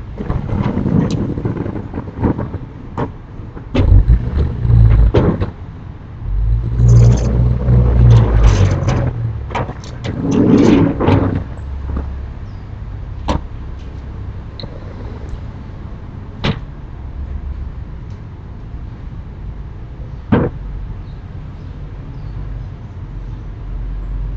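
Sliding storm shutters (amado) being pushed open along their track: three low rumbling slides with knocks and clatters in the first dozen seconds, then a few single sharp clacks several seconds apart.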